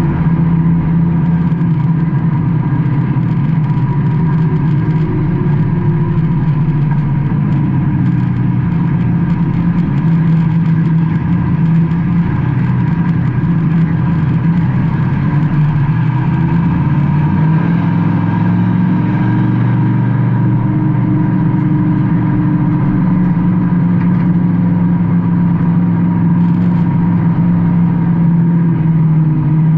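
Race car engine running hard, heard from inside the cockpit. Its pitch eases down and climbs again about halfway through as the throttle comes off and back on.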